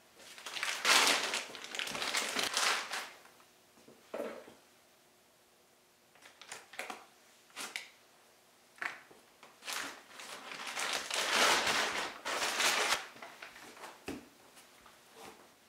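A clear plastic bag crinkling and rustling in two long spells as a block of clay is taken out of it, with a short knock near the end as the clay block is set down on the canvas.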